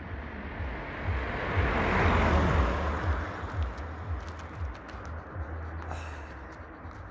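A car driving past on the road, its tyre and engine noise swelling to a peak about two seconds in and then slowly fading away.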